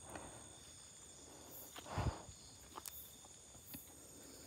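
Steady high trilling of a night-insect chorus, with a few soft footsteps on leaf-littered ground; the loudest step comes about two seconds in.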